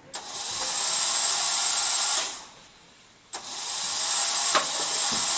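FTC competition robot's electric motors running in two bursts of about two seconds each, each starting suddenly with a steady high whine and hiss, then stopping.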